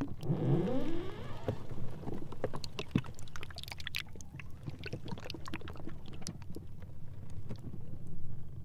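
Sea ice floes rubbing and grinding against each other: a pitched squeal that bends up and down in the first second, then scattered crackles and clicks over a low, steady rumble.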